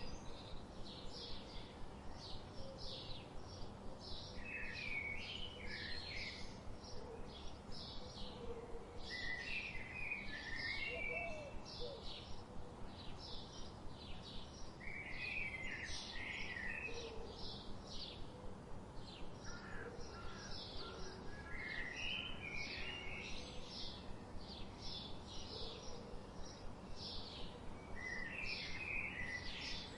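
Forest birdsong: short high chirps repeating steadily, two or three a second, with a warbling song phrase about every five or six seconds, over a steady low background hiss.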